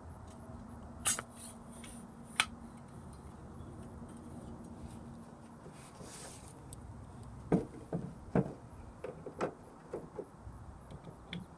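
Handling noise from a small-block Chevy distributor being reassembled: two sharp metal clicks in the first few seconds, then a quick run of knocks and taps near the end as the parts are fitted and set down.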